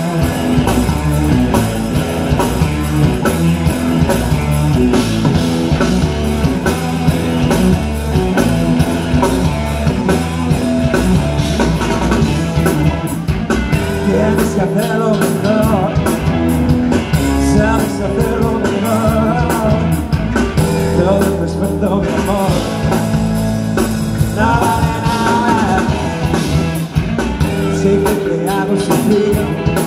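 Live rock band playing a song: electric guitars, bass guitar and drums, with a man singing over them.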